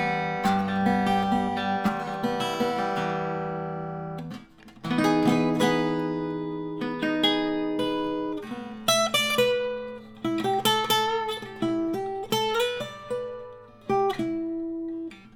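1959 Gibson L-48 archtop acoustic guitar played unplugged: a chord rings out and slowly dies away, then after a short break more chords follow, and from about halfway single picked notes move up and down the neck.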